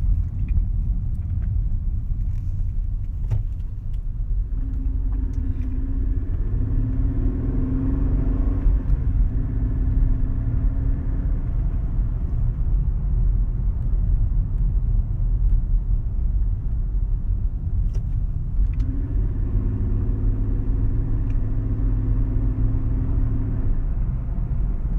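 Mercedes-Benz CLK 320's 3.2-litre V6 running with a low, uneven grumble; a higher engine note comes in twice for several seconds, then drops away. The grumble comes from mis-gapped spark plugs and misfiring coil packs.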